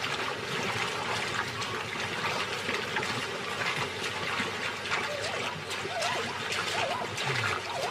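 A herd of zebras and wildebeest crossing a river: a steady rushing, splashing wash of water with many small scattered knocks and scuffs.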